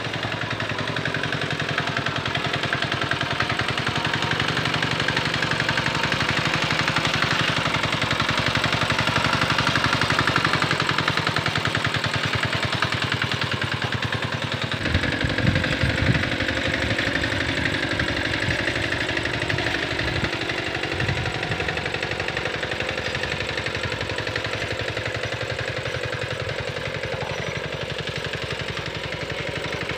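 Small engine of a Quick Capung Metal two-wheel hand tractor running steadily with a fast pulsing beat as it drags a harrow through paddy mud. From about halfway in there are several seconds of heavier low thumping.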